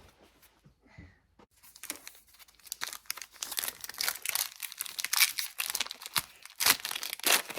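Plastic wrapper of a hockey card pack being torn open and crinkled in the hands: a dense, crackly rustle that starts about a second and a half in, with a few sharp louder crackles near the end.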